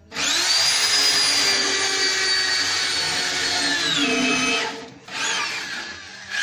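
Iskra electric drill running at full speed for about four seconds, then winding down and stopping, followed by a short second burst that falls in pitch as the motor spins down. The bit is boring air holes into the grill's steel body to give the weak charcoal fire more draft.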